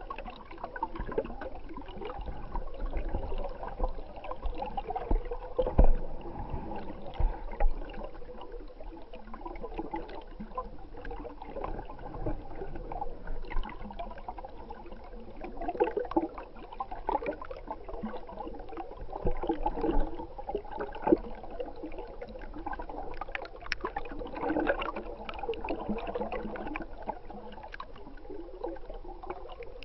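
Stream water gurgling and bubbling, heard through a camera held underwater, with a few soft knocks and bumps.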